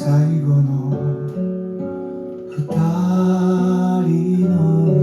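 A Japanese song's instrumental outro led by guitar, played back from a record on a turntable with a Koetsu Coralstone Platinum moving-coil cartridge. The chords change about once a second, and the music grows fuller and louder a little under three seconds in.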